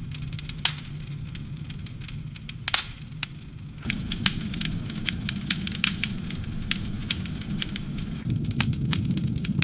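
Campfire burning: irregular crackles and pops from the wood over a steady low rumble of the flames, with a few sharper pops. The crackling becomes busier and the rumble fuller about four seconds in.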